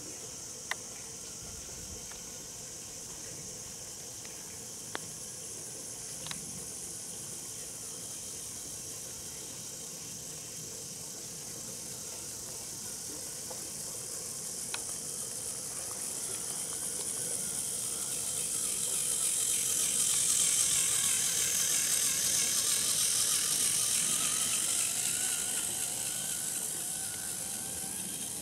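Model train: a small four-wheel diesel-outline locomotive's electric motor whirring and its wheels running on the track. The sound swells as the train comes close, peaks about twenty seconds in with a wavering whine, then fades as it moves away. A few sharp ticks are heard in the first half.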